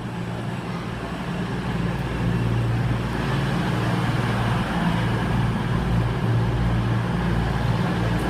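A train running with a low, steady hum that grows louder over the first couple of seconds and then holds.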